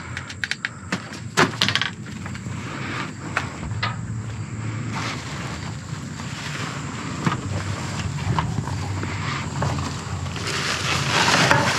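Discarded items being rummaged through and handled in a dumpster: a run of sharp clicks and knocks in the first few seconds, over a steady rushing background noise that grows louder near the end.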